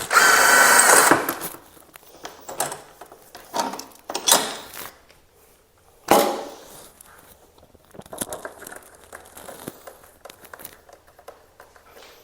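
An impact tool runs in a burst of about a second, loosening a fairing mounting bolt. Shorter bursts and knocks follow a few seconds later, then lighter clicks and rattles of parts being handled.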